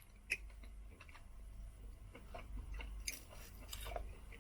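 A person chewing a piece of cooked Kobe beef: soft, wet mouth sounds with small clicks, a sharper click about a third of a second in and a few more near three seconds.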